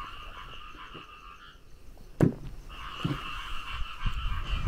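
A steady chorus of calling animals made of rapid pulsing calls, which breaks off for about a second in the middle and then resumes. A single sharp knock sounds about two seconds in.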